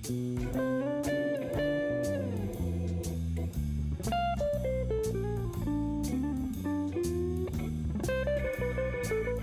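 Background music: a bluesy guitar tune with sliding notes over a bass line and a regular drum beat.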